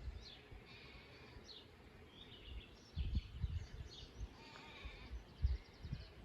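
A sheep bleating, with small birds chirping and a few low thuds.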